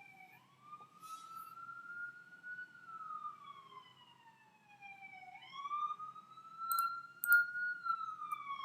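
A wailing siren, its pitch sweeping up quickly and then sliding slowly down, in cycles of about five seconds.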